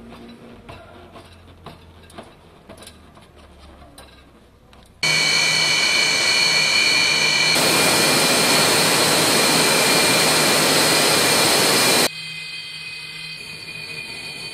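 Fighter jet engines running: a loud rush with a steady high whine over it. It cuts in abruptly about five seconds in and drops sharply in level about seven seconds later, the whine carrying on. Before it come only faint scattered clicks.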